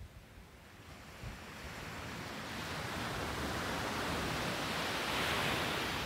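A small ocean wave breaking on a sandy beach and washing up the shore, its rushing hiss swelling from about a second in to its loudest near the end.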